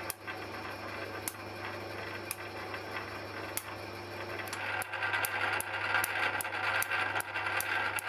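Lathe driving a Eureka form-relieving tool while it profiles a gear cutter: a steady motor hum with a sharp mechanical click about once a second. About five seconds in, a louder rough noise joins and the clicks come faster, about three a second.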